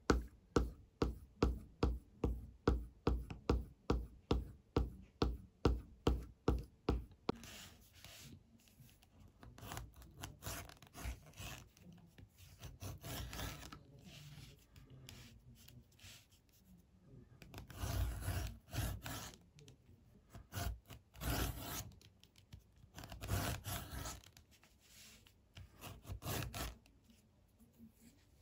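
A French edger's blade stroked back and forth on a sharpening strop, a quick even rubbing about two and a half strokes a second for the first several seconds. Then the sharpened edger scrapes along leather in a series of passes, shaving off thin strips. The passes are louder in the second half.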